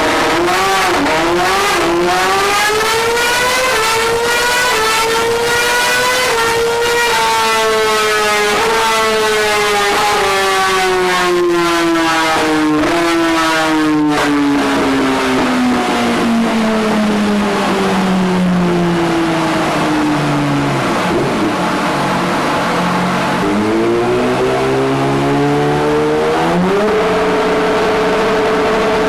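Yamaha R6 inline-four engine revving: its pitch climbs for about six seconds, then winds down slowly over the next fifteen, before rising again about three-quarters through and holding a steady high note near the end.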